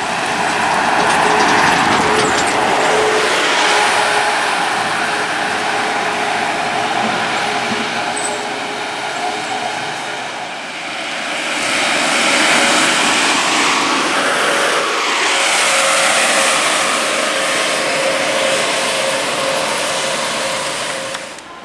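Diesel buses running past: first a Volvo single-deck bus pulling away and driving off, its engine and tyres with a steady whine. About halfway through, a Volvo double-decker passes along the concrete guided busway, its tyre and engine noise swelling and sweeping in pitch as it goes by.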